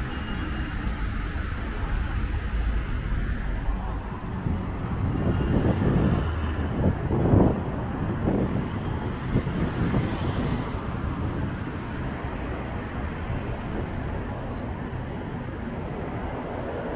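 City street traffic noise, steady and low, with a louder stretch about halfway through as vehicles pass close by.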